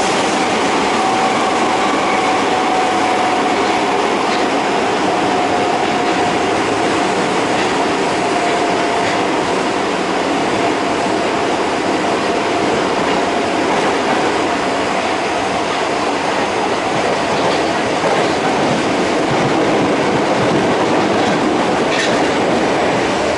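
Osaka Metro 22 series subway car running between stations, heard from inside the cabin: a steady rumble of wheels on rail with a thin whine from the Hitachi GTO-inverter traction drive that sinks slowly in pitch.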